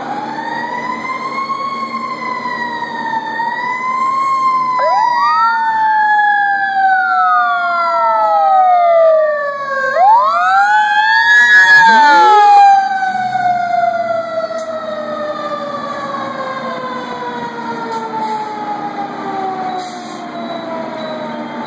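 Fire engine sirens wailing, rising and falling in pitch, with two quick upward sweeps. They are loudest a little past the middle, then one long tone slides slowly down in pitch to the end.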